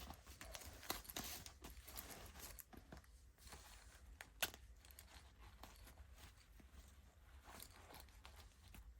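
Faint handling of a miniature toy backpack and its small plastic contents: scattered light clicks and rustling, with one sharper click about four and a half seconds in.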